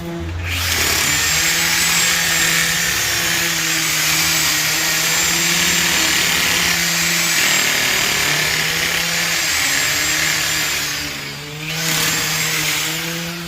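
Chainsaw cutting through a bottlebrush trunk: a long, steady cut of about ten seconds, a brief drop, then a second short burst of cutting.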